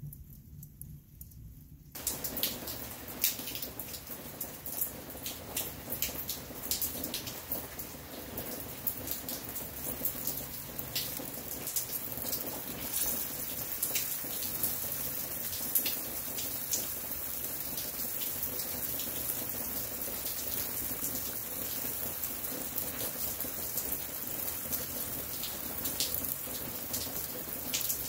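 Ribs and lump charcoal sizzling on the grate of a Big Green Egg kamado grill: a steady hiss full of small crackles and pops. It sets in suddenly about two seconds in.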